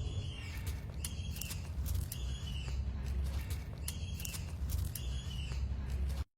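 Birds chirping, short calls repeating every second or so over a low steady rumble; the sound cuts off suddenly at the end.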